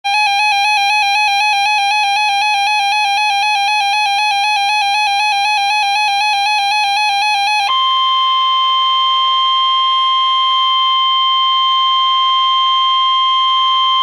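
NOAA weather radio going off for a warning. For about eight seconds it gives a loud, rapidly pulsing electronic alarm tone. This switches abruptly to the steady 1050 Hz National Weather Service warning alert tone, which holds until the broadcast voice begins.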